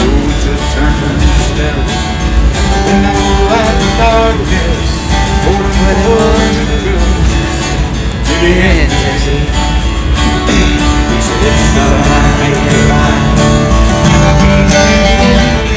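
Steel-string acoustic guitar strummed in a country tune, with a man singing along.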